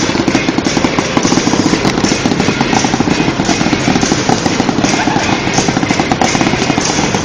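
Fireworks going off in a rapid, unbroken string of bangs and crackles, many a second, without a pause.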